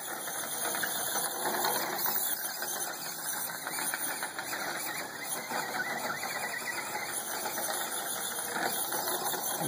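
Radio-controlled truck's 25-turn electric motor whining as it runs across a grass lawn, the whine rising and falling in pitch as the truck speeds up and slows, over a steady background hiss.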